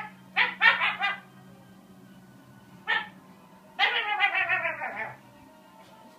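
Dog barking in short vocal calls, then a longer wavering howl-like call that falls in pitch about four seconds in.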